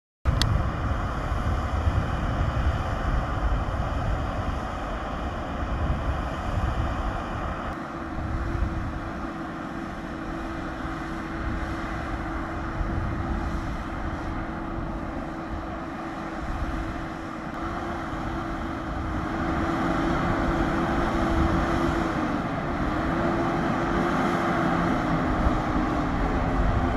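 Saab 340B turboprop, with its GE CT7 engine running on the ground: a steady engine and propeller drone over a low rumble. A hum wavers a little in pitch, and the sound grows louder over the last third.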